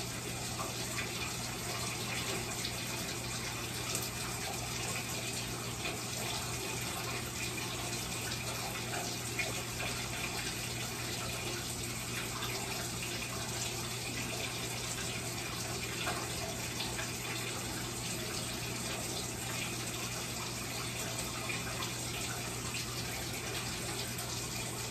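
Bathtub tap running in a steady, unbroken stream.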